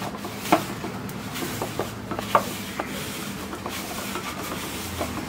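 A utensil scraping and stirring a thick masala paste of chilli powder, spices, ginger-garlic paste, cornflour and vinegar in a bowl, with several sharp clinks against the bowl, the loudest about half a second in and again a little after two seconds in.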